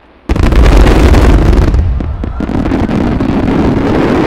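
A mass simultaneous burst of large aerial firework shells, 12-inch shakudama fired together. Many booms land at once about a third of a second in, followed by a loud, continuous crackle and rumble.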